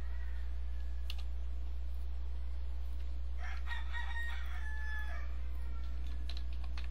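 A rooster crowing once, about two seconds long, midway through, over a steady low hum. A few computer keyboard clicks sound near the start and near the end.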